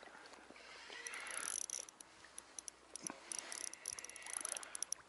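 Handling noise: rustling and crinkling with many short, sharp ticks, in two spells, one around the first two seconds and a louder one near the end.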